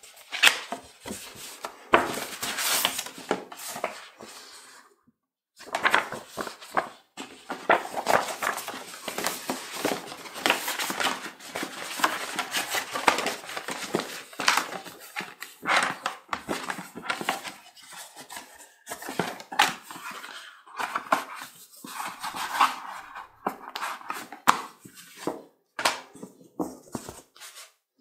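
Cardboard and paper packaging of a graphics card box handled by hand: rustling, sliding and tapping of the box flaps, a fold-out card folder and printed inserts, with a short pause about five seconds in.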